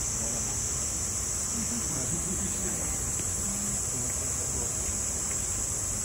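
Cicadas buzzing steadily at a high pitch, over a low rumble of wind on the microphone.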